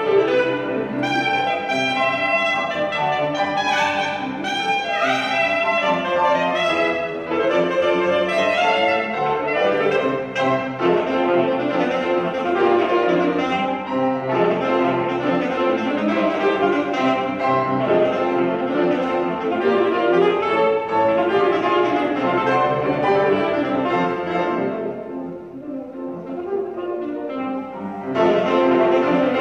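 Saxophone and grand piano playing a lively ragtime-style concert piece together. The music drops quieter for a few seconds near the end, then comes back in full.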